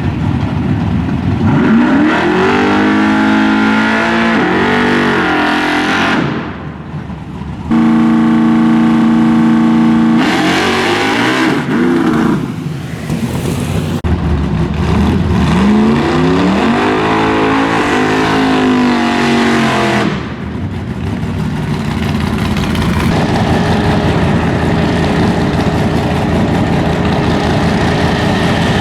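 Big-block Chevrolet V8 drag car engine revving hard and accelerating, its pitch climbing in several sweeps that break off and build again, with a steady held note in between.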